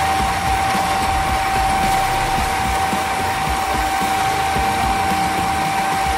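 Homemade power hacksaw cutting a metal bar: its electric motor runs with a steady high whine while the crank-driven blade saws back and forth through the steel.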